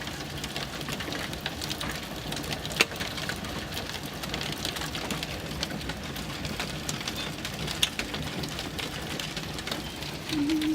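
Marble-sized hail pelting a car's roof and windshield, heard from inside the cabin: a dense, uneven patter of sharp ticks over the steady hum of the moving car, with a louder strike about three seconds in and another near eight seconds.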